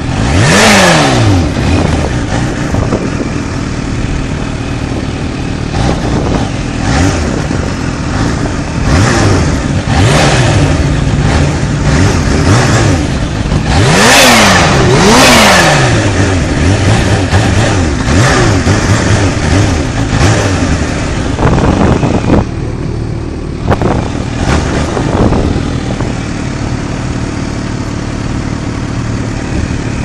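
Supercharged inline-four engine of a Kawasaki Ninja H2 running at low speed, with repeated throttle blips, each rev rising and falling back; the sharpest comes just after the start, and two quick ones come back to back about halfway through.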